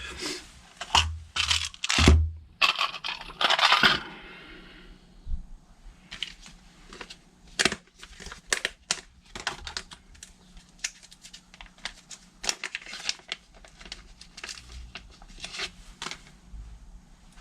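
Small metal carburettor parts, such as jets, clicking and clinking as they are handled on a workbench. The first few seconds are taken up by a louder rustle and crinkle.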